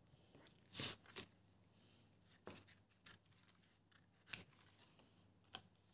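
Small craft scissors cutting through a paper print: a few quiet snips, scattered a second or so apart.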